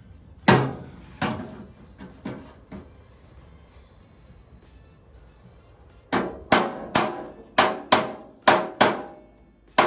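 Hammer tapping out dents in a steel truck fender. A few blows come in the first three seconds, each ringing briefly, then after a pause a steady run of about three blows a second starts about six seconds in.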